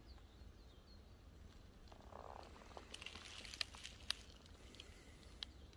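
Quiet woodland ambience: a few faint high bird chirps, a short rattling croak-like call about two seconds in, then a scattering of sharp clicks and crackles.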